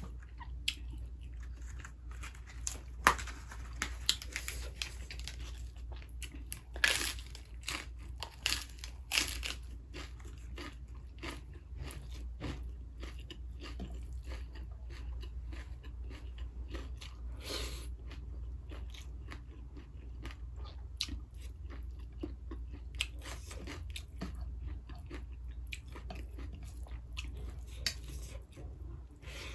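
Close-miked chewing and biting of crunchy food: a stream of small mouth clicks and crunches, with sharper, louder crunches about 3, 7 and 9 seconds in and again near 17 seconds.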